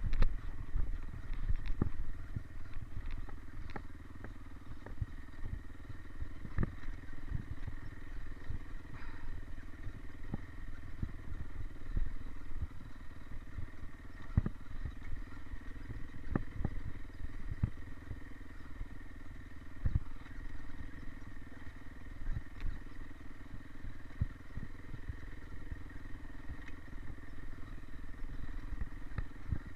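Dirt bike engine running at low, steady revs while the bike rolls down a rough dirt trail, with frequent knocks and rattles from the bike jolting over bumps.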